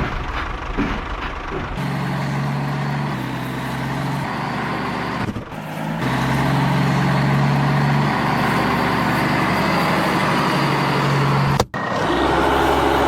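Motor running with a steady low drone, broken off by two sudden cuts.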